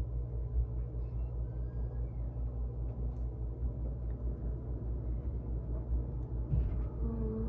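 A steady low rumble, heaviest in the deep bass.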